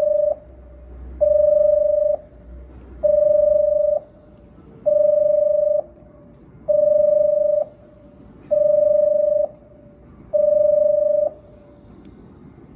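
Station platform warning beeps for an approaching train that will pass through: a steady electronic tone sounding about once every two seconds, each beep just under a second long, seven in all, stopping near the end.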